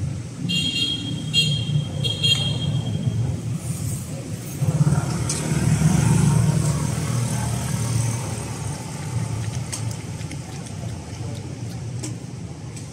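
Street traffic: a steady low engine hum, with a vehicle passing close by that swells from about five seconds in and fades after about eight. Near the start come three short high beeps about a second apart.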